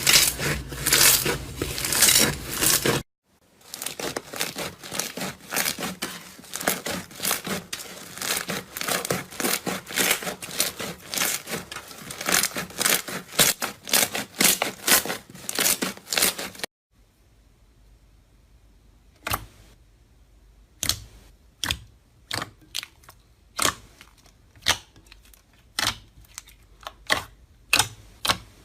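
Slime being squeezed and poked, giving a dense run of sticky crackles and pops. After a sudden break about 17 seconds in, the pops come sparser and sharper, one or two a second.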